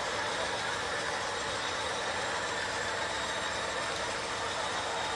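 Model railway PTA bogie wagons rolling along the track in a steady stream: the running rumble and hiss of small metal wheels on rail.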